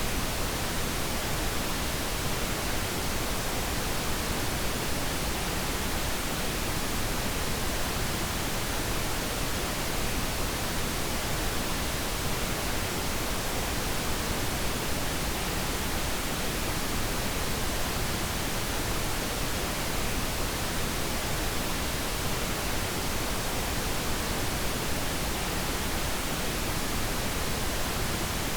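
Steady synthetic noise played as a sleep aid: an even, unbroken hiss spread across the whole range, with no change in level.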